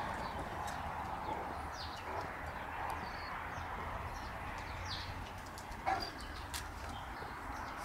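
Small birds chirp briefly now and then over a steady background hiss, with light clicks of dogs' claws on brick pavers. A brief louder sound comes about six seconds in.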